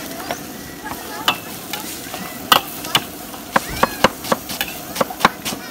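A metal ladle scraping and knocking irregularly against a large steel wok as chicken pieces are stir-fried, over a steady sizzle from the pan.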